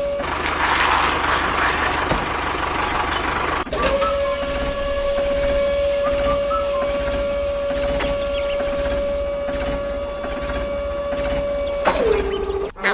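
Small electric motor whining at a steady pitch. It stops just after the start, leaving a hissing noise for a few seconds, then runs again from about four seconds in. Near the end its pitch drops as it slows, and it cuts off.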